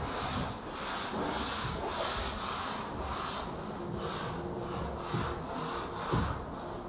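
Wood being worked by hand with quick back-and-forth rubbing strokes, about three a second, with a couple of light knocks near the end.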